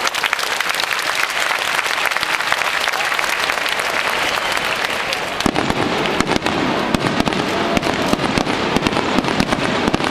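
Fireworks display: a dense rapid crackle of many small bursts. About five and a half seconds in, deeper, heavier booms join and keep going over the crackling.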